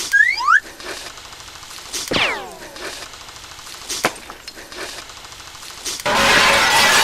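A run of cartoon sound effects. Quick rising whistle glides come at the start, a falling whistle glide about two seconds in, and sharp cracks roughly every two seconds. A loud glass shatter starts about six seconds in.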